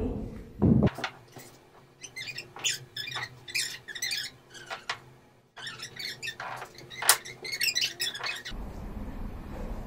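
Short, high squeaks in quick clusters from footwork on a row of small wooden balance blocks on a polished studio floor, with a thump just under a second in.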